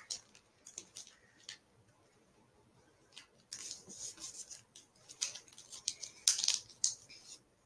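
Pokémon trading cards being handled and leafed through: short, dry slides and flicks of card against card, thickening into a quick run of them about three and a half seconds in.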